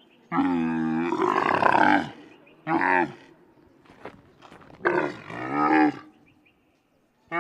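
A camel calling three times with low, pitched bellows: a long call of nearly two seconds, a short one, then another of about a second.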